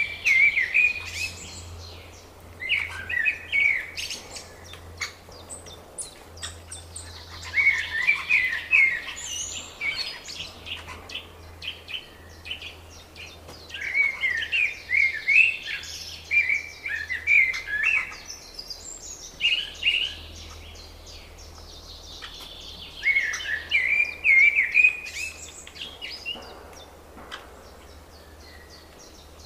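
Spring songbirds singing: one bird repeats a short, bright song phrase every few seconds, with fainter calls and song from other birds between.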